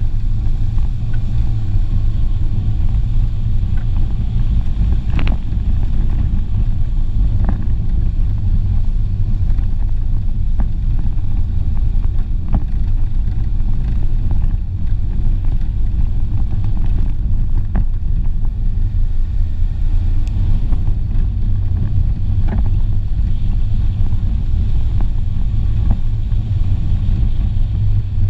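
Renault Clio driving along a rough dirt track: a steady low rumble of engine, tyres and road noise, with a few sharp knocks from the car going over bumps.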